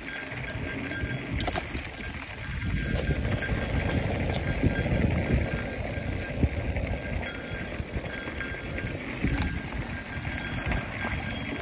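Mountain bike ridden fast down a rough dirt single-track: knobby tyres rolling on loose dirt and the bike rattling and clattering over bumps, with a steady rush of riding noise underneath.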